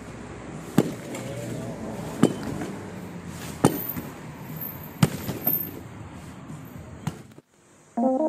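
A hammer striking a concrete block wall in sharp single blows, five in all, about one and a half seconds apart. Near the end the sound cuts out and piano music begins.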